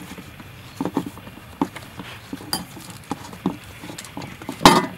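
Hands kneading sticky rice dough in a stainless steel bowl: short, dull, irregular slaps of the dough against the bowl, about two a second, with one louder knock near the end.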